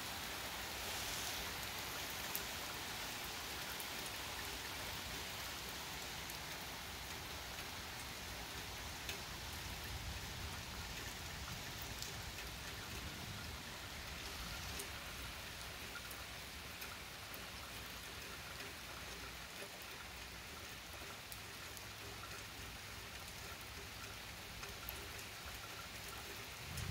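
Steady rain pouring onto wet pavement, with a few sharp drop ticks close by. It eases slightly as it goes on.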